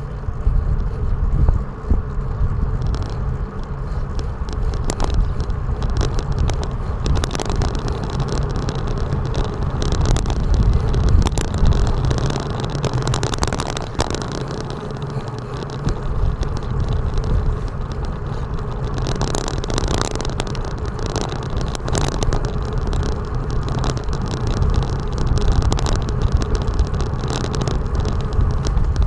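Wind rumble and road noise on an action camera's microphone while riding on wet roads, with scattered knocks from bumps. A hiss swells twice, near the middle and about two-thirds of the way through, like vehicles passing on the wet surface.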